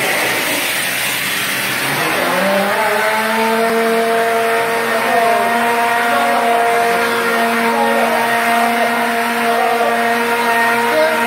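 Motor of a BS40 combined construction machine running with a steady whine, its pitch rising to a steady level about two and a half seconds in, dipping briefly around five seconds and falling near the end.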